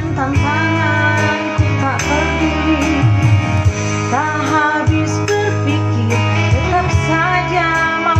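A woman singing a slow Indonesian ballad into a microphone, with sustained, gliding notes, over backing music with guitar and a steady bass.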